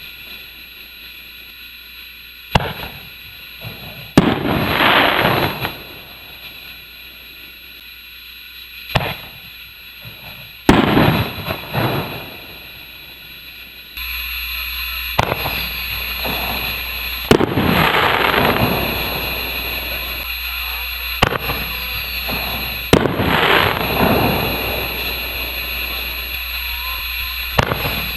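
Aerial canister shells firing, heard from a distance: a series of sharp launch and burst reports, several followed by a crackling tail lasting a second or so. About halfway through, the background steps up to a louder steady hiss.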